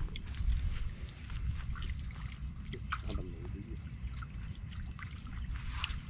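Steady low rumble of wind on the microphone in an open field, with faint scattered ticks and chirps over it.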